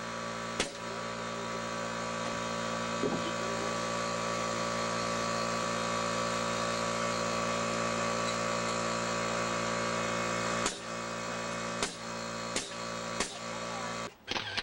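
Air compressor motor running with a steady hum, while a pneumatic nail gun fires sharp shots, twice at the start and four or five times in the last few seconds. The hum stops suddenly near the end.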